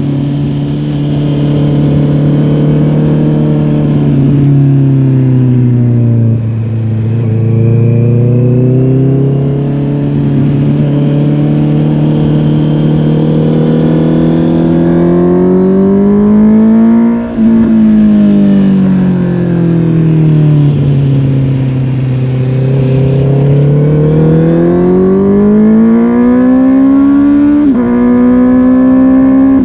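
A Honda CB650R's inline-four engine running through a MIVV GP Pro Carbon aftermarket exhaust while riding, its pitch rising and falling with the throttle. It eases off about six seconds in, climbs to a sudden drop about seventeen seconds in, settles lower, then climbs again and steps down sharply near the end, as with quick gear changes.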